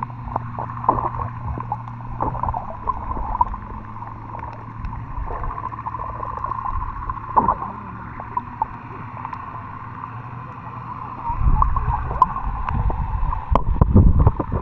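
Muffled underwater sound of a snorkeller swimming over a reef, heard through an action camera's waterproof case: dull water rumble and gurgling with scattered clicks. It grows louder in the last few seconds.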